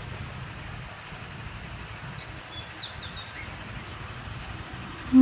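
Outdoor rural ambience: a steady hiss and low rumble, with a few short, high bird chirps about two and three seconds in.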